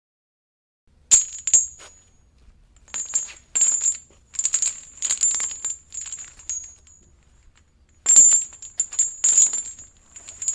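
Metal chain rattling in several shaken bursts of bright, ringing clinks, starting about a second in after silence.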